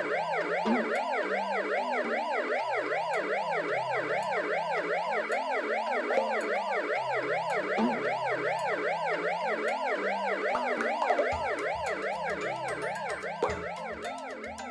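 Cartoon ambulance siren: a fast rising-and-falling wail, about three sweeps a second, getting quieter near the end, over a light children's music bass line.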